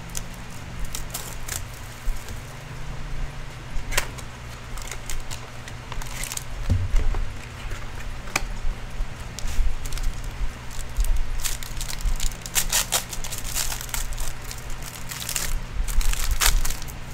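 Foil trading-card pack wrapper crinkling and tearing as a pack is opened and the cards handled. The crackle comes and goes, thickest over the last five seconds or so.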